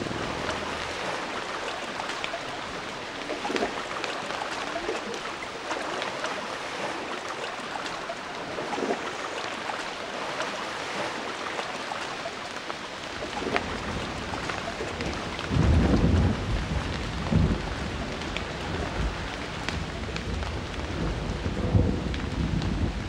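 Steady rain falling, joined about two-thirds of the way through by deep rolling thunder. The thunder is loudest about three-quarters in, with further rumbles near the end.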